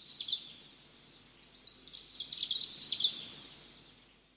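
Small birds chirping and twittering in quick high strokes, a short spell at the start and a louder spell about two to three seconds in.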